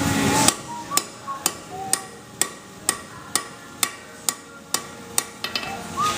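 Blacksmith's hand hammer striking hot steel on an anvil in a steady rhythm, about two blows a second, each with a short metallic ring. A brief rush of noise comes before the first blow.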